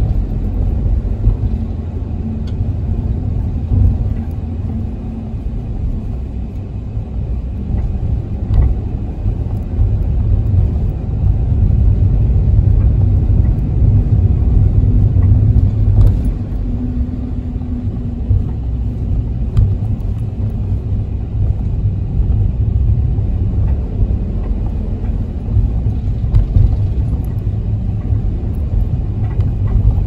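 Toyota HiAce minibus with a 2.8-litre diesel, heard from inside the cabin while driving: a steady low rumble of engine and road noise that swells and eases, with a few sharp rattles.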